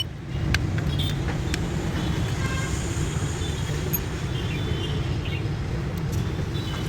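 Steady road-traffic rumble with faint short horn toots and a few sharp clicks.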